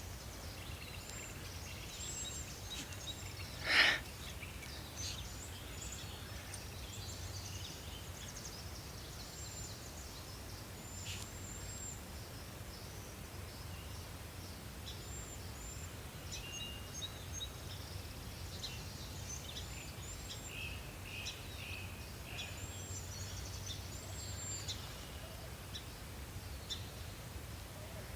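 Small birds chirping and singing in a pasture over a steady low rumble, with one louder, brief sound about four seconds in.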